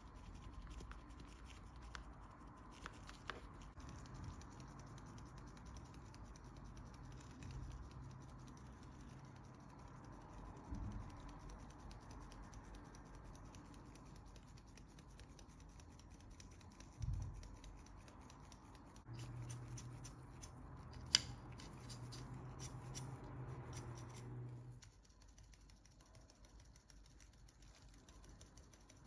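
Faint scratching and clicking of hand work, over a low hum that cuts off suddenly near the end.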